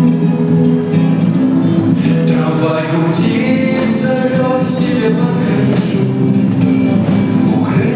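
A song playing: singing over guitar accompaniment.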